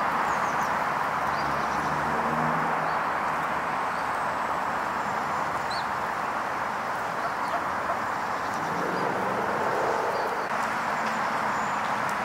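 Steady rushing background noise, with faint high chirps of small birds now and then.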